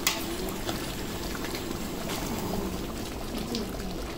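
Large pot of biryani rice cooking in chicken stock at a hard boil on full flame: steady bubbling and gurgling.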